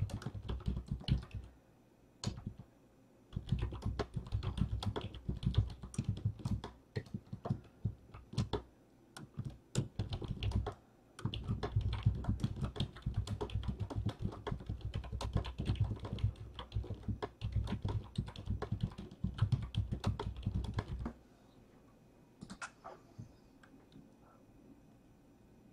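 Fast typing on a computer keyboard, in bursts of rapid key clicks and thuds with brief pauses, stopping about 21 seconds in; a few faint clicks follow.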